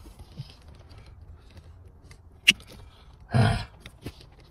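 Small plastic clicks and handling noises from wiring connectors and trim being worked by hand under a truck's dashboard, with one sharp click about two and a half seconds in and a short louder scuffle about a second later.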